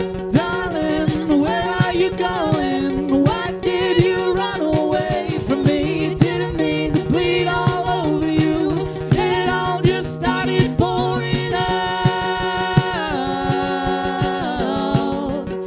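Live rock band playing: steady drum hits under held chords, with a sliding, wavering lead melody line.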